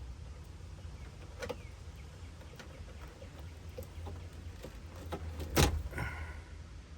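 Scattered light clicks and taps of parts and tools being handled while working on a car's wiring, over a steady low rumble. One louder knock comes about five and a half seconds in, followed by a brief squeak.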